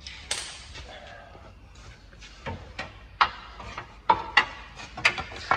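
Sharp knocks and clanks from hand work on a car's rear engine/gearbox mount and its hardware: scattered at first, then several a second in the second half.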